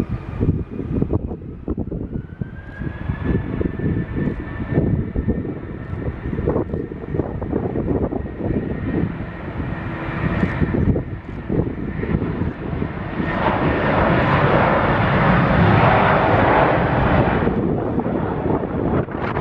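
Airliner engines with a high steady whine that rises slightly about two seconds in, swelling to a louder rush from about 13 to 17 seconds. Gusty wind rumbles on the microphone throughout.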